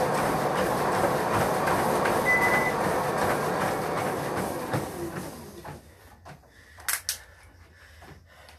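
Treadmill under a runner: belt and motor noise with steady pounding footfalls, which die down after about five seconds as the belt slows to a walk. A short beep sounds about two seconds in, and two sharp knocks come near the end.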